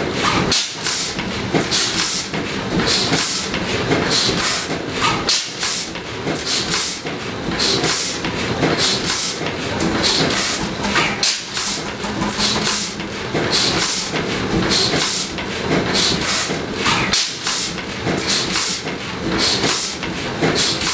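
Large old horizontal stationary engine running, with a regular, quick, hissing beat of strokes.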